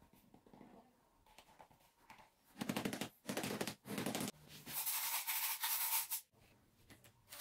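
Rubbery scraping and rubbing as silicone mold parts are handled and pressed together, then a hiss lasting about a second and a half.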